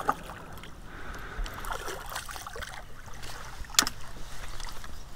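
Hooked largemouth bass splashing at the surface beside a boat while being played, with water sloshing. One sharp knock about four seconds in.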